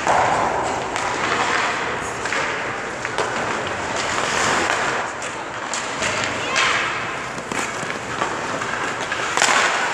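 Hockey skate blades scraping and skidding on rink ice in repeated hissing swells, with scattered sharp clacks of sticks and pucks.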